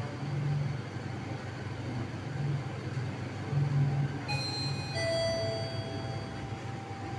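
Sigma traction elevator car running down with a steady low hum. About four seconds in, as it arrives at the floor, the arrival chime sounds two notes, the second ringing on for about two seconds.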